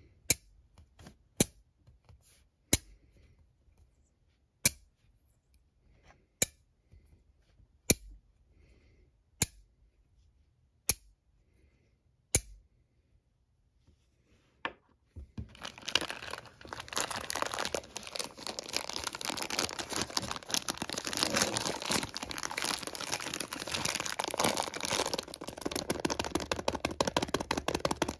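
Two smooth ferrite magnetic pebbles snapping together with sharp clicks, about one every second and a half, nine times. After a short pause, a plastic bag full of the pebbles crinkles steadily as it is handled.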